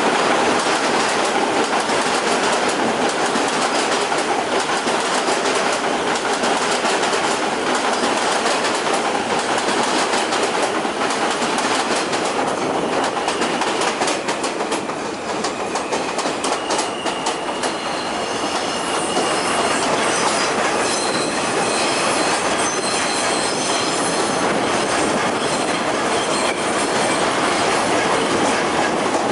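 Kawasaki R160B-1 subway cars running on an elevated steel structure, with steady loud wheel-and-rail noise. Around the middle the wheels click over rail joints, and in the second half thin high squealing tones come in as the train slows into the station.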